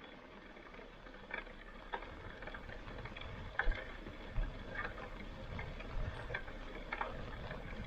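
Footsteps crunching on dry forest floor, about one to two steps a second, each with a soft low thud.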